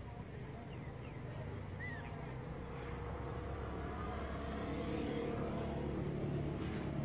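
A motor vehicle's engine running steadily, growing gradually louder, with two short high chirps about two and three seconds in.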